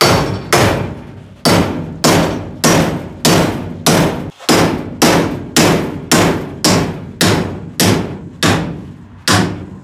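Hammer blows on a welded aluminium square-tube T-joint held in a vise, about twenty strikes at roughly two a second, each with a short metallic ring, bending the upright tube over. It is a strike test of the aluminium weld's strength.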